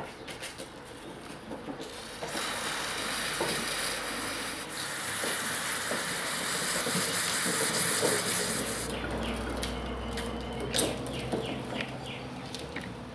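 Aerosol intake cleaner sprayed through a red straw nozzle onto a small carburetor part: a steady hiss starting about two seconds in and lasting about six and a half seconds, with a short break partway through. Light clicks and taps of small parts being handled come before and after the spray.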